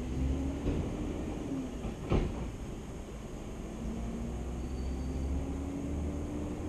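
A distant engine drone, its pitch slowly rising, over a low rumble of wind on the microphone, with one sharp click about two seconds in.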